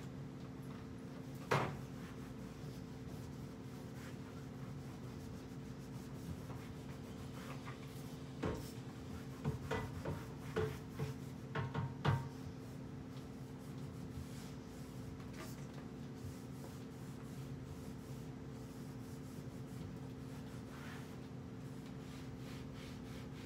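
Cloth rubbing and wiping over wooden kitchen cabinet doors, with a sharp knock about a second and a half in and a cluster of short knocks and clicks around the middle as the bottle and hands bump the doors. A steady low electrical hum runs underneath.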